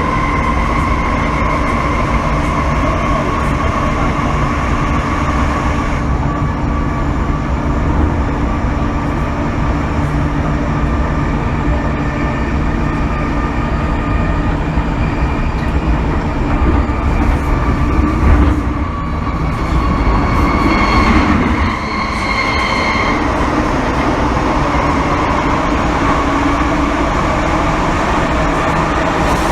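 MTR M-Train metro car heard from inside the cabin while running: a steady rumble of wheels on track with a constant motor whine. Between about 18 and 23 seconds the sound shifts and higher whining tones come in briefly.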